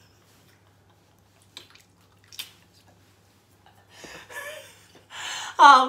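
Quiet room with two faint clicks, then a person's voice in short sounds over the last two seconds, loudest just before the end.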